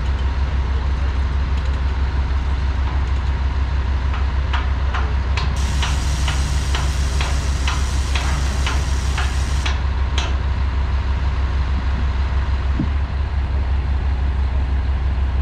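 A heavy diesel engine idling steadily. For a few seconds in the middle, a hiss of air sounds alongside a quick run of sharp clicks, about three a second.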